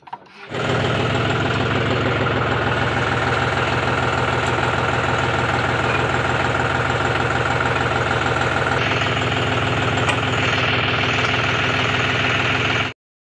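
John Deere tractor's diesel engine running steadily. The sound comes in abruptly about half a second in and cuts off suddenly near the end.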